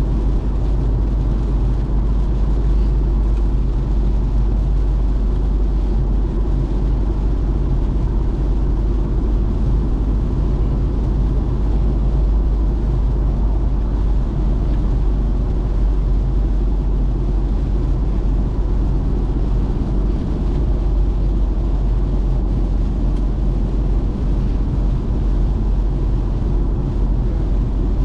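Steady low rumble of a car on the move, road and drivetrain noise heard from inside the cabin.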